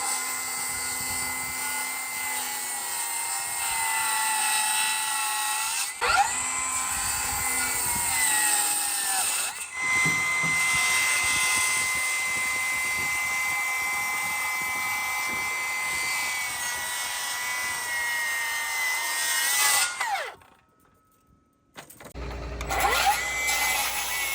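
Cordless Milwaukee M18 FUEL 7-1/4-inch circular saw running and cutting timber in several long passes, each ending as the motor winds down in a falling whine. It falls quiet briefly about twenty seconds in, then spins up again near the end.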